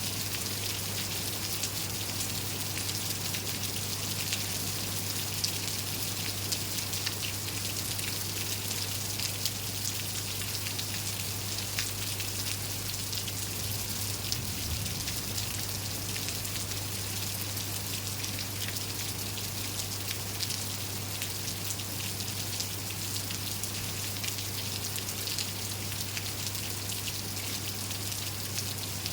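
Steady rain falling, with many separate drop ticks over an even hiss and a steady low hum underneath.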